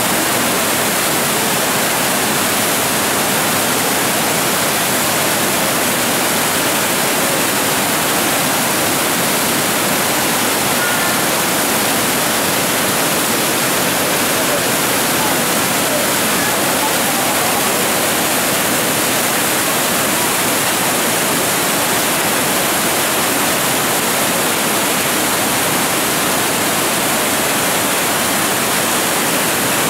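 Floodwater pouring over a lake's overflow weir and churning below it: a loud, steady rush of turbulent water in full flood.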